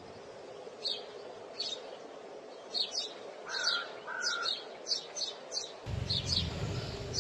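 Small birds chirping: short, high chirps repeated every half second or so, with two lower chirps near the middle, over a faint steady hum. A low rumble of background noise comes in near the end.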